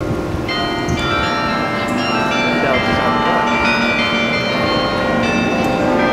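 Church bells of Saint Servatius ringing, many bells struck in quick succession so their tones overlap and hang on, starting about half a second in.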